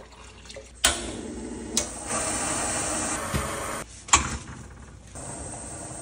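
Water poured from a plastic jug into a stainless-steel pot, a steady splashing pour lasting about three seconds. A sharp knock follows about four seconds in, then a steady lower bubbling as the water boils near the end.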